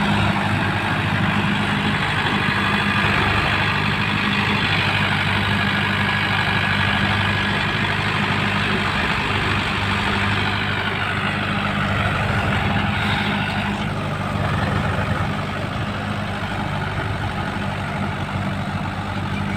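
Diesel engines of two tractors, a Swaraj 735 FE and a Mahindra, running steadily under heavy load as they pull a fully loaded trolley together.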